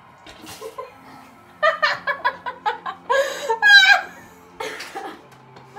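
Two girls laughing hard: a run of quick giggles starting about a second and a half in, rising to a high squeal near the middle and trailing off into breathy laughs.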